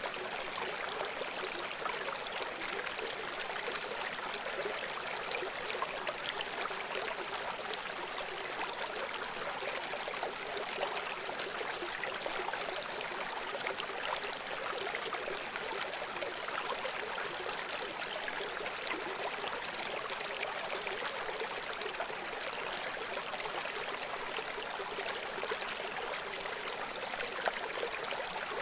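Steady, even rush of running water, like a stream or small waterfall, unchanging throughout.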